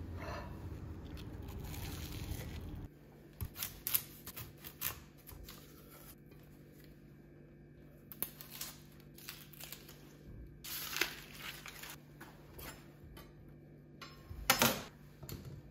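Papery outer skin of a red onion crackling and tearing as it is peeled by hand on a wooden cutting board, in short scattered bursts, with a few sharp clicks and knocks on the board. For the first few seconds a steady low rushing noise plays, then cuts off abruptly.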